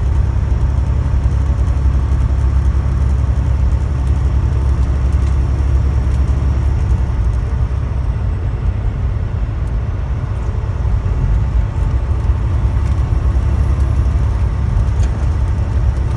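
Steady low drone of a truck's engine and tyre noise heard from inside the cab while cruising at highway speed.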